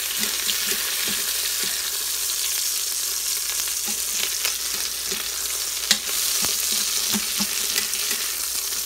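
Chicken thighs frying in oil in an Instant Pot's stainless steel inner pot on sauté: a steady sizzling hiss, with short clicks of metal tongs against the pot and one sharper clack about six seconds in.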